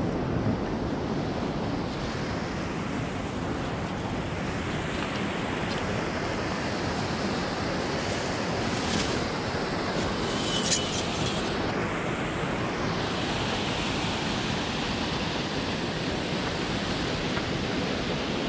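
Water pouring over the dam spillway into the pool below, a steady rushing roar with no pause.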